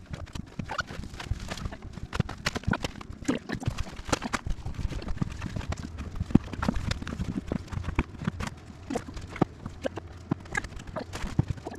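A quick, irregular run of small clicks and knocks, several a second.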